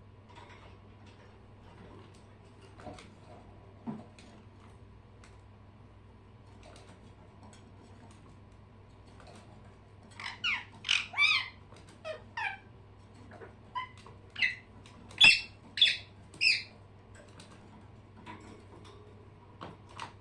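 Pet birds calling: a run of about a dozen short, loud calls starting about halfway through and stopping a few seconds before the end, over a low steady hum, with a few faint taps earlier.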